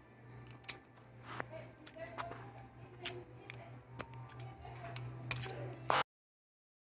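Irregular sharp clicks and taps over a steady low hum, cutting off abruptly about six seconds in.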